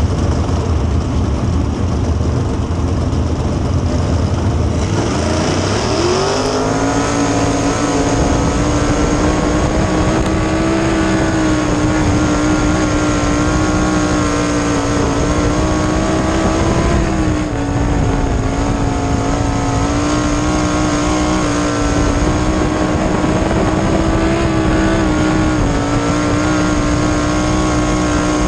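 Winged dirt sprint car's V8 engine running at race speed, heard from an onboard camera. About five to six seconds in its pitch climbs sharply. After that it holds a high, steady note with slight rises and falls.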